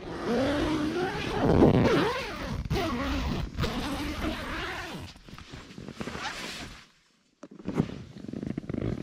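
Tent door zip being pulled open in several drawn-out rasps whose pitch rises and falls with the speed of the pull. After a brief silent gap about two-thirds of the way in, nylon fabric rustles and crinkles as a sleeping bag or stuff sack is handled.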